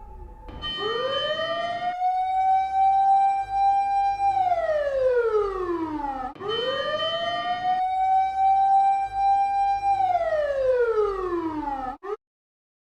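Siren sound effect rising in pitch, holding a steady note, then sliding down, twice in a row, before cutting off abruptly near the end.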